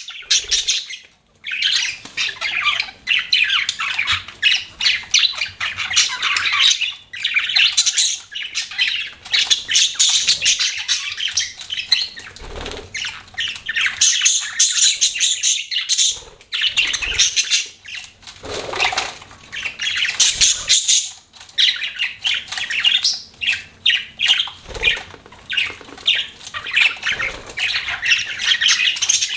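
Pet budgerigars chirping and chattering continuously, a dense stream of rapid high calls and squawks from several birds.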